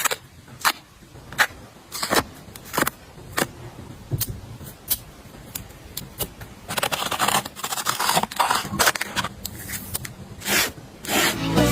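Hands handling a sticker blind box and its packaging: a string of sharp clicks and taps, then a few seconds of rustling and scraping a little past the middle.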